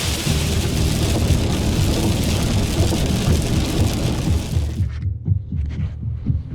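Heavy rain pouring down with a low rumble beneath, in the sound of a thunderstorm. The rain noise cuts off suddenly about five seconds in, leaving only the low rumbling.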